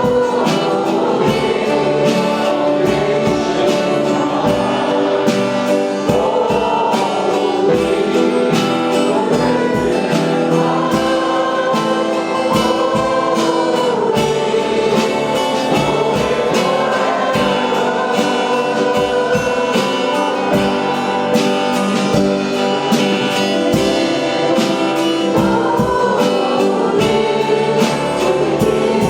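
Congregational worship music: a group of singers over a full band with a steady drum beat.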